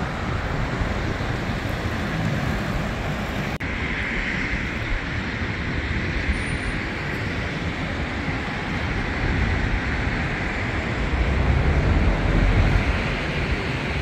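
Wind buffeting the microphone: an uneven low rumble under a steady rushing noise, with a stronger gust near the end.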